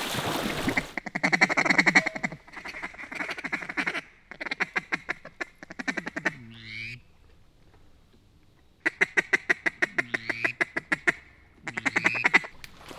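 Hunters' duck calls blown in runs of rapid quacking and chattering, with a few short whistle notes mixed in and a pause in the middle. The calling is meant to get the attention of ducks circling overhead and bring them in.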